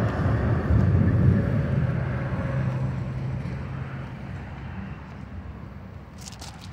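Low engine rumble of something passing, fading steadily away. Near the end come a few sharp crunching clicks.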